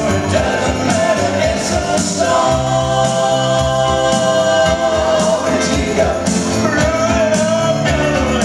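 Live band playing: electric guitar, bass guitar and keyboards under male voices singing, the voices holding one long note for a couple of seconds in the middle.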